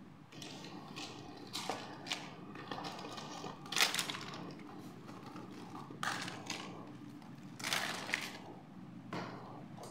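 Small plastic doll accessories (combs, brushes, hand mirrors) clattering as they are tipped out of a cardboard box and spread around by hand. The clatter comes in separate bursts, several quick rattles, the loudest about four seconds in.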